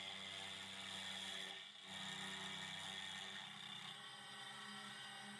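Milling machine running, its end mill cutting into the cast vise jaw of a bandsaw: a steady mechanical whir with a low hum and a high tone, which dips briefly about two seconds in.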